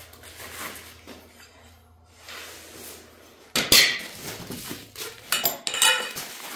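Metal parts of a plasma table kit clattering and clinking as they are handled and set down, with rustling through foam packing. The clatter starts suddenly about three and a half seconds in.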